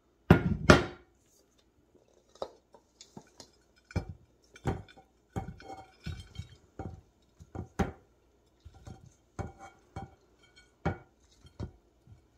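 Stainless steel mixing bowl and ceramic baking dish clinking and knocking as a spatula scrapes vegetables in a thick cheese sauce from one into the other, with irregular short knocks. A louder double clatter of dishware comes about half a second in.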